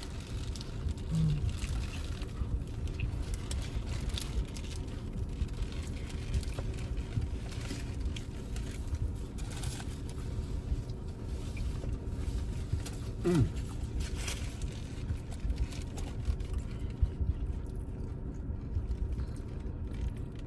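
Steady low rumble of a car cabin with the engine idling, under faint chewing and small clicks as a burger is eaten. About thirteen seconds in, a single short tone falls in pitch.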